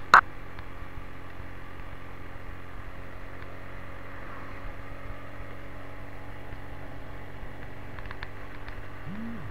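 Motorcycle engine running steadily at cruising speed, with one sharp, very short loud burst just after the start and two brief tones that rise and fall near the end.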